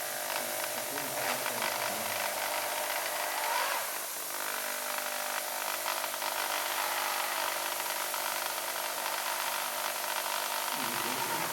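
A power tool running steadily, an even whirring hiss with a high whine in it.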